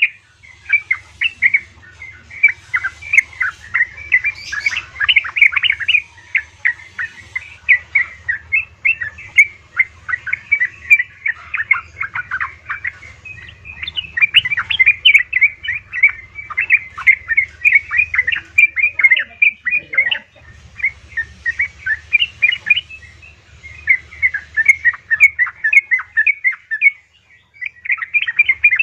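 Yellow-vented bulbul (trucukan) calling in fast runs of short chirpy notes, with brief pauses between runs; sold as a female's call to draw a male. A faint steady low hum lies underneath.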